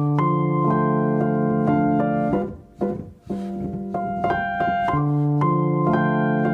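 Solo piano music playing held chords; the music briefly drops away about two and a half seconds in, then the chords resume.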